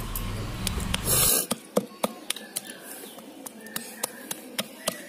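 Stone pestle striking raw green jujubes on a flat stone grinding slab (shil-nora), crushing them: a run of short sharp knocks, about three a second. A low rumble fills the first second or so before the knocks begin.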